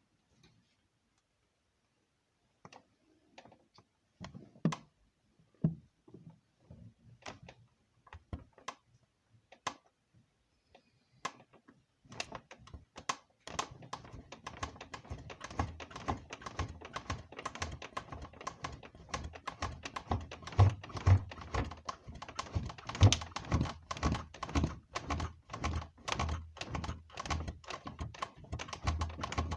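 A bed creaking and knocking. There are a few scattered clicks and knocks at first, then from about twelve seconds in a dense, continuous run of clicks and low thumps.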